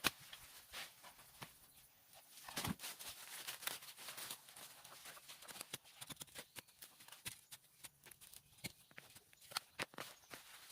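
Irregular light clicks and knocks of hand work, with a heavier thud about two and a half seconds in.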